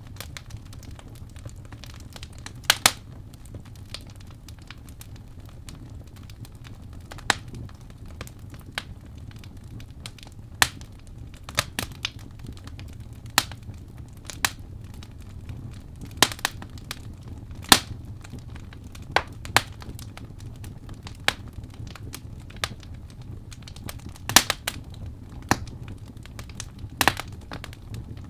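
Wood fire crackling: irregular sharp pops and snaps, a few of them louder, over a steady low rumble.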